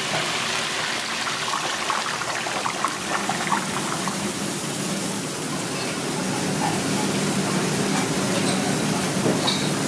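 Hot oil sizzling and bubbling in a commercial deep fryer as fries cook: a steady rushing hiss, with a few light clicks in the first seconds. A low steady kitchen hum comes in about halfway through.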